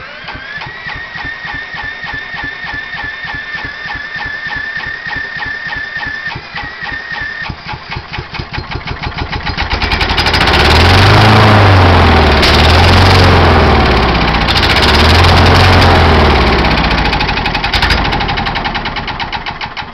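A 1996 John Deere JX85 mower's single-cylinder Kawasaki FC150V engine being cranked by an electric drill: fast even cranking under a steady drill-motor whine, then about halfway through the engine catches and runs loudly in surges for several seconds, gives a sharp backfire pop, and dies away. It runs only on the fuel primed into the carburetor, which the owner takes for a worn-out carburetor.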